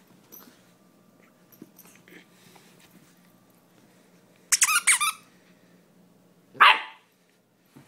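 German Shepherd puppy barking in play: a quick run of about four high-pitched yips about halfway through, then one bark near the end.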